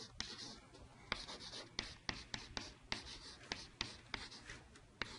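Chalk writing on a chalkboard: short strokes of chalk dragged across the board, and sharp taps as the chalk strikes it, several a second through most of the stretch.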